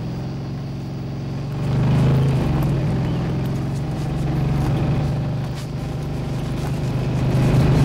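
Motorcycle engine running as it carries several riders, rising in level about two seconds in and again near the end.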